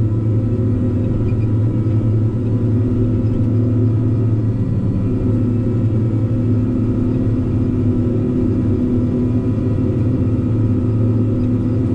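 Tigercat 620 skidder's diesel engine running with a steady low drone as the machine pushes dirt with its front blade.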